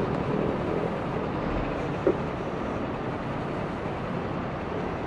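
Steady city traffic noise, an even wash of passing vehicles, with one short click about two seconds in.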